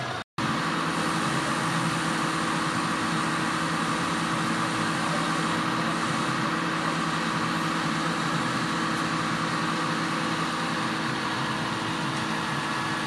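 A machine running steadily with a constant hum. It begins abruptly after a short break near the start and does not change.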